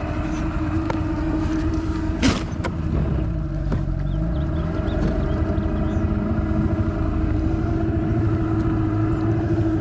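Boat motor running steadily, with a sharp click about two seconds in.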